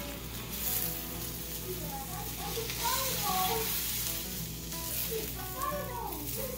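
Egg-in-a-hole, an egg set in a slice of bread, frying in olive oil in a seasoned black skillet: a steady sizzle.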